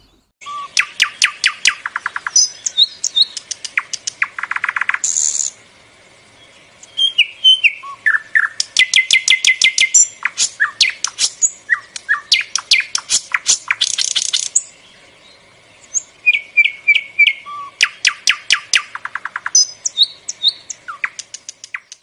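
A small songbird singing loud phrases of rapid clicking trills and short whistled notes, with brief pauses between the phrases.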